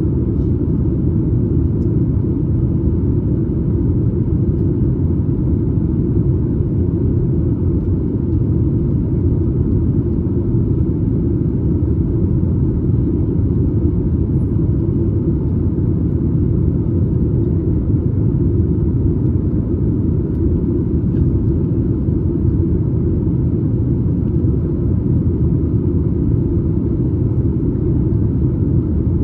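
Steady cabin rumble inside a Boeing 737 MAX 8 in flight: engine and airflow noise heard from a seat just behind the wing, even and unchanging.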